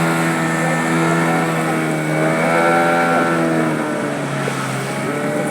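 Motorboat engine running under way at a steady pitch. Its pitch rises slightly in the middle, then drops a little about four seconds in.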